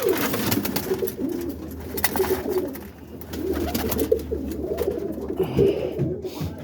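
A loft full of roller pigeons cooing, many soft low coos overlapping without a break, with scattered light clicks.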